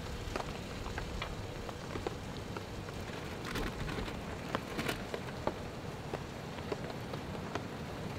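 Steak sizzling in a pan over a fire-box stove: a steady frying hiss with scattered small pops and crackles. Packaging and a paper towel rustle briefly about halfway through.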